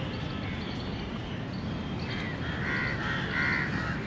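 A crow cawing: several short, quick caws in the second half, over a steady murmur of background noise.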